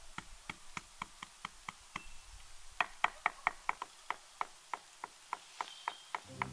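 Hammer tapping in quick, even strokes, about four a second, each knock ringing briefly. The strokes are loudest around the middle.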